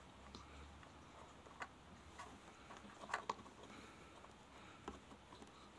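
Near-silent room with a few faint, scattered taps and ticks of a small stick poking and cutting into a piece of raw carrot on a tabletop. The loudest is a quick pair of taps about halfway through.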